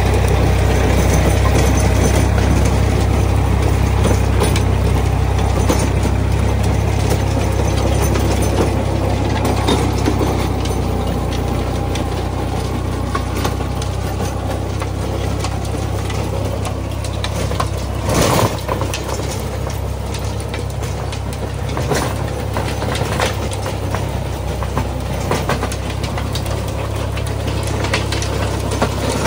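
Same Deutz-Fahr 55 hp tractor's diesel engine running steadily under load while its rear-mounted rotary tiller churns through soil and weeds, with scattered knocks and clatter from the tiller. One louder knock comes about 18 seconds in.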